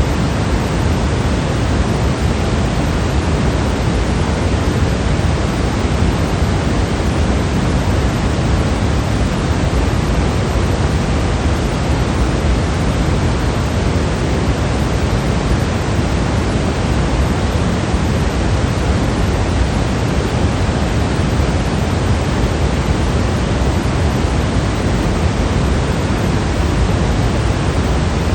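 Steady artificial white noise: an even, unchanging hiss with a heavier, deeper rush in the low end.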